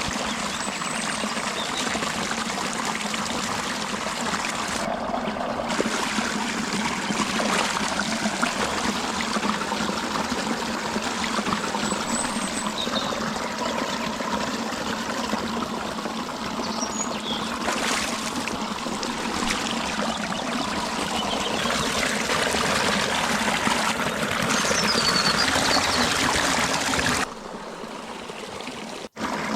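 Shallow stream running and trickling over stones, a steady rush of water, with a few faint bird chirps. The water sound drops off sharply near the end.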